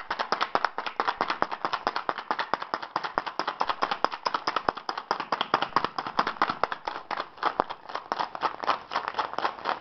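Ice cubes rattling and knocking inside a plastic cocktail shaker shaken hard and fast to chill the drink. It makes a quick, even run of sharp knocks, several a second, with no break.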